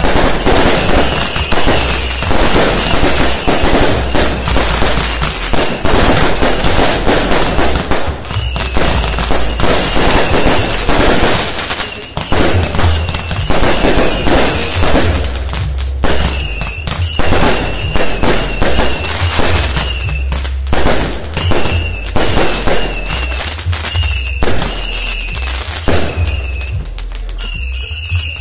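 A dense barrage of firecrackers and fireworks going off, many sharp cracks in rapid succession without a break. A short, wavering high whistle recurs through the barrage.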